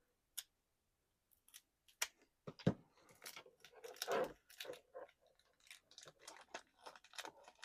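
Plastic action-figure parts and packaging being handled: a quick, irregular run of small clicks and crinkling, with a couple of sharper knocks about two to three seconds in.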